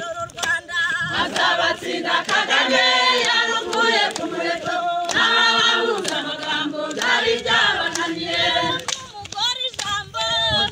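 A crowd singing a song together, many voices at once, with short sharp knocks scattered through the singing.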